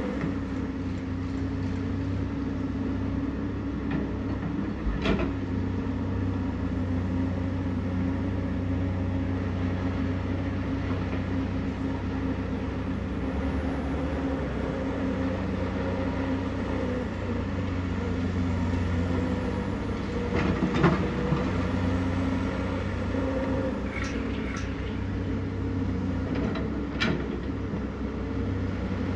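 Komatsu PC210LC excavator's diesel engine running steadily while digging and loading soil, with a few sharp knocks from the bucket and loading; the loudest knock comes about two-thirds of the way in.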